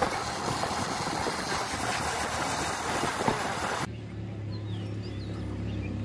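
Motorcycle on the move with wind buffeting the microphone. About four seconds in the wind noise cuts off abruptly, leaving the motorcycle engine running steadily, with a few faint bird chirps.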